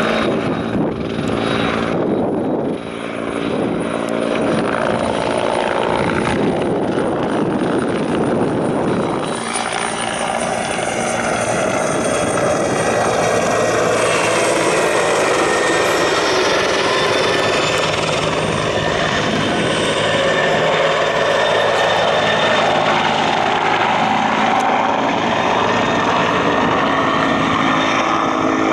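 Bell 412 twin-engine helicopter flying past, its rotor and turbine running loud. The sound grows fuller and gains a higher whine about a third of the way in as the helicopter comes closer, then holds steady.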